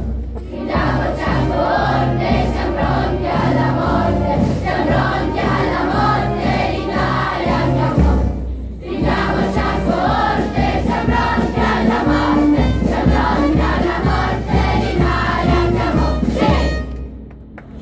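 School children's choir singing with a town wind band accompanying. The music breaks off briefly about eight seconds in, resumes, and ends shortly before the end.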